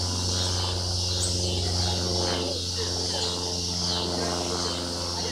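Insect chorus of cicadas and crickets: a steady high shrill with a few short chirps, set going by the darkness of the total eclipse. Under it runs a steady low hum.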